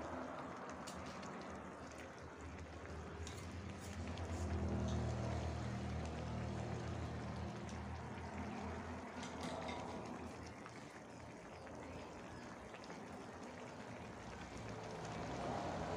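Cap cay broth simmering in a wok over a gas burner, with a few light clicks of a metal ladle against the wok in the first few seconds. A low steady hum runs underneath, swelling a few seconds in.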